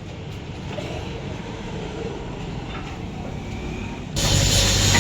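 A low mechanical rumble, then about four seconds in a loud, steady machine noise with a strong high hiss starts abruptly.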